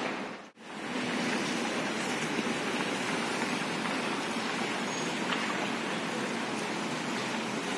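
Steady outdoor hiss of street and car-park noise. It drops out sharply for a moment about half a second in, then carries on unchanged.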